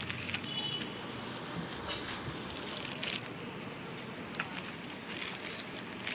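Clear plastic jewellery bags crinkling in a few short bursts as they are handled, over steady background noise.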